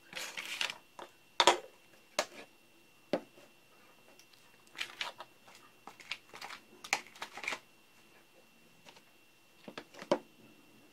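Plastic battery-pack casing and a plastic bit case being handled on a workbench: irregular clicks, taps and rattles in clusters, the sharpest about a second and a half in.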